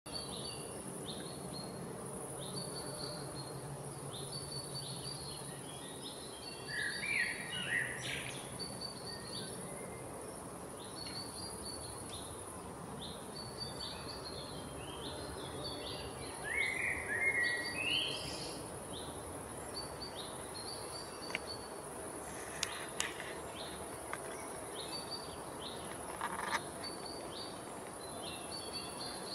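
Outdoor woodland ambience: birds calling, with a short high call repeated about once a second, and two louder bursts of chirping about a quarter and just over half of the way through, over a steady high-pitched hiss. A few faint clicks come near the end.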